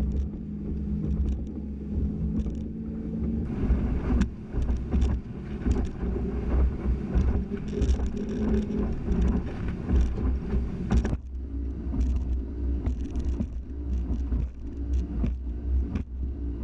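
Motorboat running at speed over choppy water: a steady engine drone with frequent knocks and thumps from the hull hitting waves, busiest from about three and a half seconds in until about eleven seconds in, when the engine note changes.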